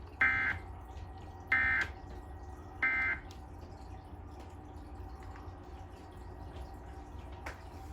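Emergency Alert System end-of-message code: three short bursts of shrill two-tone digital data warble, each under half a second and just over a second apart, marking the end of the test alert. A steady low hum runs underneath.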